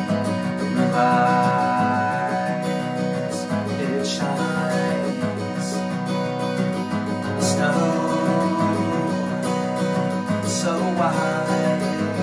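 Steel-string Taylor acoustic guitar being strummed, ringing chords with a few sharper accented strums.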